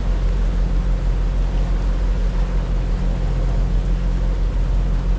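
Fishing boat's engines running with a steady, unchanging low drone.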